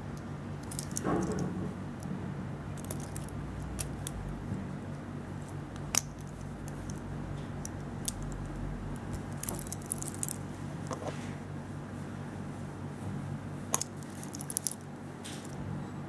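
Stainless steel link bracelet of a Victorinox Swiss Army ladies' wristwatch clinking and jingling as the watch is handled and turned over. There are a few sharp clicks among the clinks, the loudest about six seconds in and near the end.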